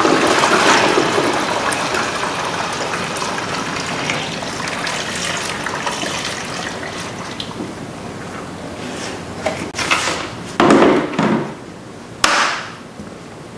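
Windshield washer fluid pouring from a plastic drain pan through a strainer funnel into the washer reservoir, a steady splashing pour that thins out after about nine seconds. A few short clunks follow near the end.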